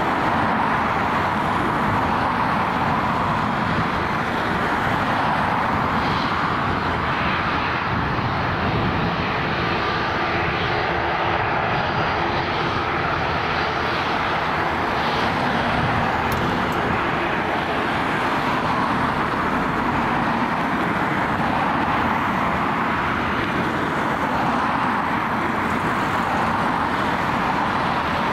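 EgyptAir Airbus A320neo's jet engines running at low taxi power as the airliner rolls slowly: a steady, even engine noise with no spool-up.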